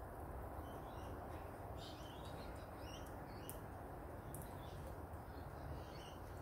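Faint, short bird chirps on and off over a steady low background hiss, with a couple of sharp clicks a little past the middle.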